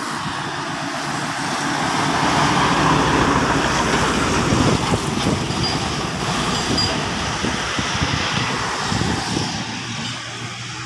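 Road traffic passing close by: vehicles, an SUV and a heavy truck among them, driving past on the asphalt road. The passing noise swells to its loudest a couple of seconds in and slowly eases off.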